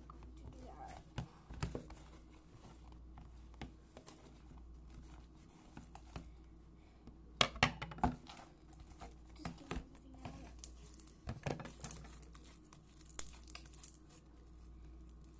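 A clear plastic tub and its lid being handled: irregular crinkling of plastic with small clicks and knocks, and a cluster of sharper knocks just past halfway.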